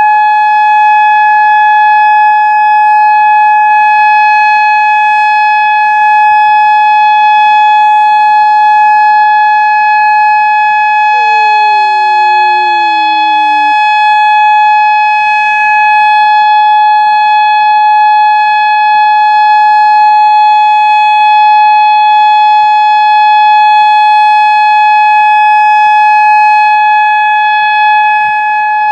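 Whelen 2016 single-tone outdoor warning siren sounding a loud, steady tone during a siren test.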